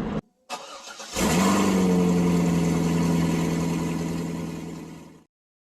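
Cheap 12 V compressor-fed air horn (a 'train horn') blowing one long steady blast. It starts about a second in and dies away near the end.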